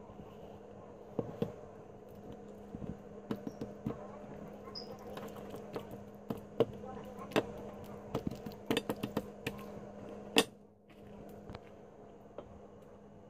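Hands handling and seasoning raw steaks on a plate: scattered small taps and clicks, with one louder knock about ten seconds in, over a steady low hum.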